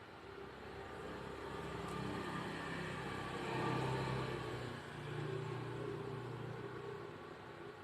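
A motor vehicle passing by, its engine and road noise swelling to a peak about four seconds in and then fading away.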